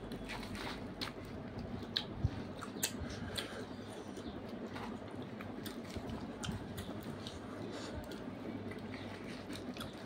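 Two people eating puri and chicken curry by hand at close range: chewing, and soft fried puris torn with the fingers, with scattered small clicks and mouth smacks over a steady background hiss.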